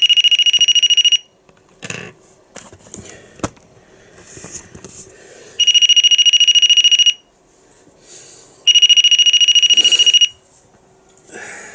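A door handle alarm's buzzer, rewired as a DIY REM pod, sounds a loud, high-pitched, rapidly pulsing alarm three times, each burst lasting about a second and a half, as the device triggers. Short clicks and knocks from handling come between the bursts.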